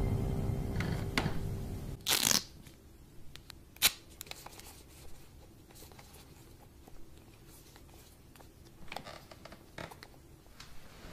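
Scary music fades out over the first two seconds, leaving a quiet room with light rustling. A short swishing noise comes about two seconds in and a sharp click about four seconds in, then a few fainter clicks near the end from a wall rocker light switch being pressed.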